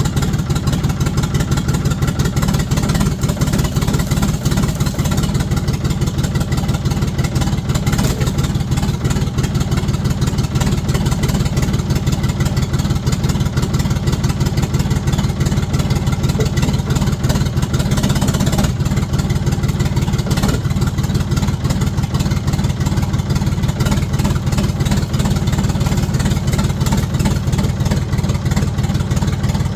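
A 1973 Ford 4500 industrial backhoe's diesel engine running steadily at an even pace, with a fast, regular chug from its firing strokes.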